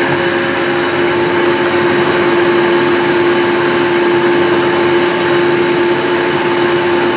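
Vertical metal-cutting bandsaw running and sawing through a clamped metal plate: a steady machine hum with a constant whine over it.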